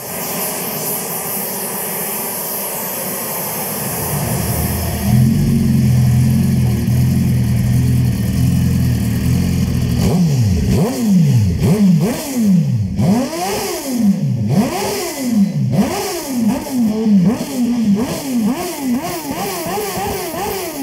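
For the first few seconds a pneumatic grinder hisses. Then a sport motorcycle with an aftermarket slip-on silencer runs at a steady idle. From about ten seconds in its engine is blipped sharply about a dozen times, the pitch jumping up and falling back with each blip.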